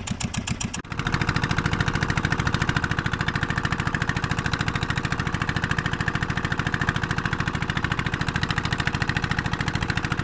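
Fishing boat's engine running steadily, with an even, rapid pulsing beat.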